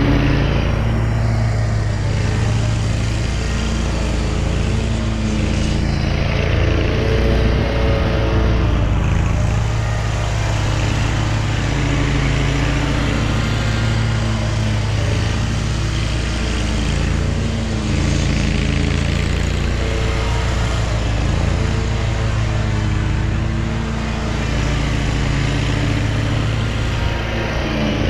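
Hustler zero-turn riding mower engine running steadily while cutting grass, its pitch wavering slightly as it works.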